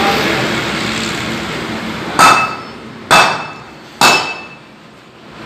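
A hammer striking metal three times, a little under a second apart, each blow ringing briefly.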